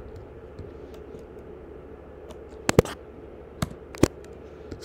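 Computer keyboard keys pressed a few times while code is typed: a quick pair of clicks a little before three seconds in, then single clicks near the end, over a steady faint hum.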